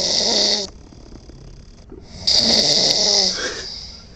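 A pet dog snoring loudly in its sleep. One snore dies away just after the start, and another follows about two seconds in, lasting over a second.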